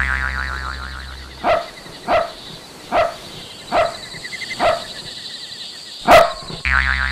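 A dog barking six times, spaced about half a second to a second and a half apart, the last bark the loudest. A deep steady bass tone sounds before the barks and returns near the end.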